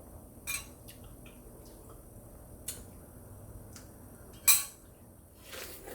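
Eating utensils clinking and tapping against a dish a few times, the loudest about four and a half seconds in.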